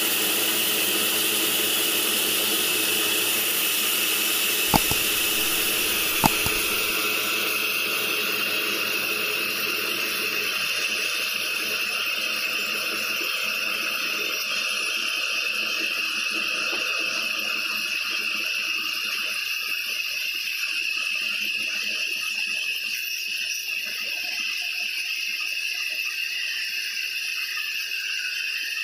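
Sawmill band saw running and ripping a thick wooden slab: a steady high whine over a hiss of cutting. Two sharp knocks come about five and six seconds in.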